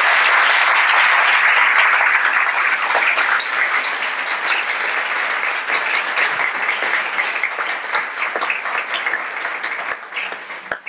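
Audience applause, a dense clapping at first that thins out and fades near the end, with single claps standing out.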